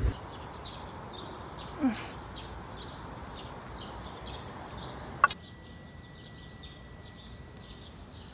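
Small birds chirping, short high calls repeating a few times a second over a low outdoor hiss. A brief falling sound comes about two seconds in, and a sharp click about five seconds in.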